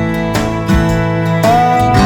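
Background music led by plucked guitar, with a steady beat and a note that slides up about one and a half seconds in.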